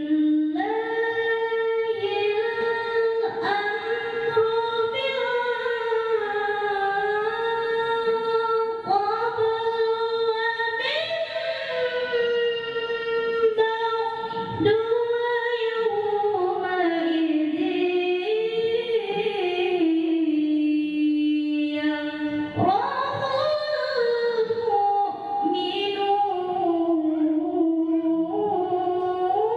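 A young girl reciting the Qur'an in melodic tilawah style, unaccompanied: long, ornamented held notes in a high voice that bend up and down, with a few short breaks for breath.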